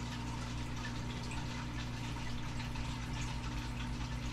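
Steady low electrical hum under a soft, even hiss: room tone with no distinct events.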